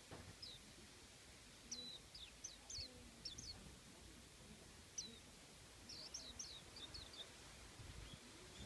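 Japanese white-eye (mejiro) giving faint, high, short down-slurred chirps, in scattered little groups of two to four notes.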